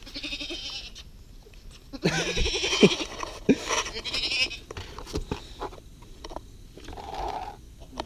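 A person's voice making several drawn-out bleating 'baa' calls, imitating a goat.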